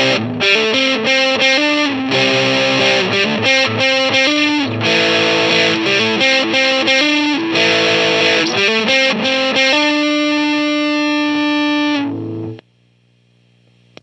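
Electric guitar played through the Schu-Tone Auroch, a Tube Driver–style overdrive pedal switched on, giving a crunchy overdriven tone: a riff of chords and single notes, ending on a held chord that rings from about ten seconds in and is cut off just after twelve seconds. Then a faint amp hum and a click near the end as the pedal's footswitch is pressed.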